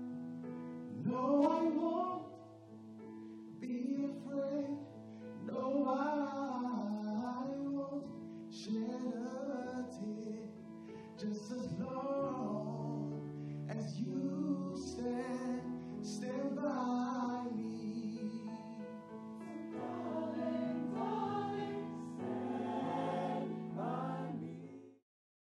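A small vocal group singing, a man's voice leading with other voices joining, over held chords of accompaniment. The music stops suddenly near the end.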